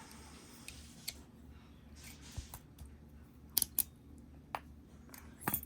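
Sharp clicks and taps of a rebuilt Master Lock padlock and small tools being handled, spaced irregularly, with a quick cluster of three a little past halfway and another loud pair near the end.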